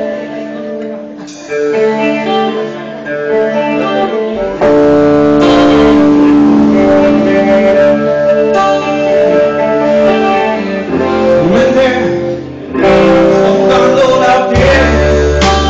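Live band of electric guitar, bass guitar and drums playing. A guitar plays sparse notes at first, then the full band comes in loudly about four and a half seconds in.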